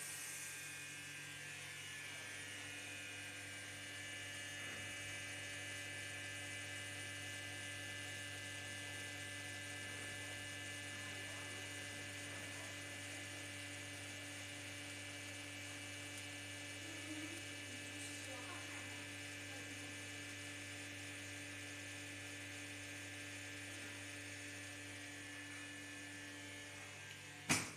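Vacuum pump of a chamber vacuum packaging machine running with a steady hum as it draws the chamber down to vacuum. Near the end it ends with a short loud burst as the chamber vents and the pump stops.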